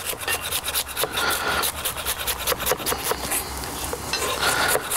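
Chef's knife rapidly cutting kohlrabi into julienne strips on a wooden chopping board, a quick, steady run of strokes as the blade knocks onto the wood.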